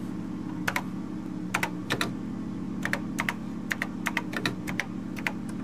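Keys clicking on a TRS-80 Model III's keyboard as a short BASIC program line is typed, in irregular single strokes and quick runs, over a steady low hum.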